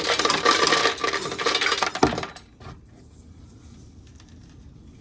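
Dry corn clattering and rattling as it is dumped and packed into a container, a dense run of hard clicks that ends with a sharp knock about two seconds in and then stops.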